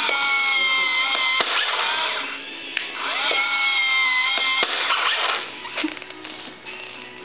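Small electric gear motors of a Marui M1A2 RC tank whining as they spin up and run, twice for about a second and a half each, with rougher gear grinding in between.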